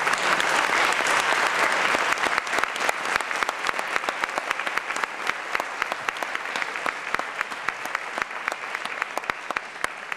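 Audience applauding, with many people clapping. The applause is densest and loudest in the first couple of seconds, then gradually thins toward more scattered, distinct claps.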